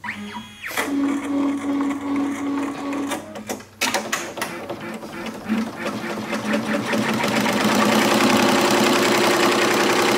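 HappyJapan HCH PLUS multi-needle embroidery machine starting up and stitching latigo leather with a sharp point needle. It opens with a rising whine and a brief steady hum, then from about four seconds in the needle strokes build into a fast, steady rhythm that grows louder from about seven seconds.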